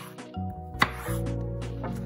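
Chef's knife chopping through eggplant onto a wooden cutting board: one sharp chop just under a second in, with lighter cuts around it, over background music with sustained notes.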